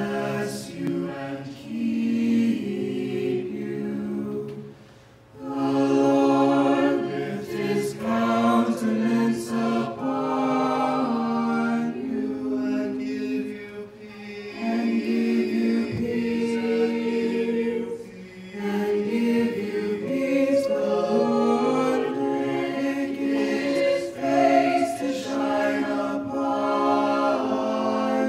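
A small mixed ensemble of men's and women's voices singing a cappella in harmony through microphones, in held phrases with short breaks between them, one near 5 seconds in and another near 18 seconds.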